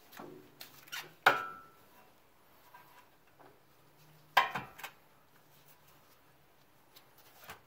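Metal clanks and clinks from the parts of a homemade bushing press (large socket, bolt and bearing plates) knocking together as it is nudged into line on the control arm bushing. The loudest clank, about a second in, rings briefly; two more come close together about four and a half seconds in.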